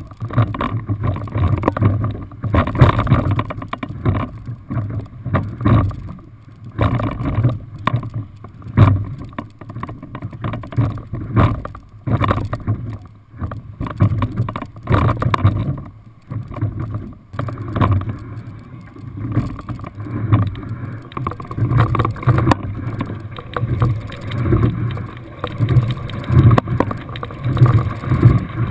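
Single scull being rowed: water rushing along the hull with short knocks from the oars and rigging, swelling with each stroke about every two seconds.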